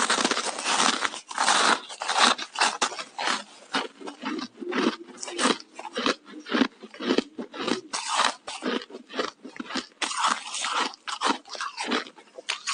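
Ice sticks being bitten and chewed close to the microphone: a dense, rapid run of sharp crunches.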